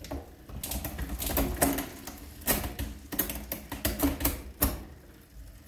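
A bicycle drivetrain turned by hand on a Wahoo Kickr Snap wheel-on trainer: a dozen or so sharp, irregular clicks and ratcheting from the chain, gears and freehub, over a low hum from the rear tyre spinning the trainer's roller and flywheel.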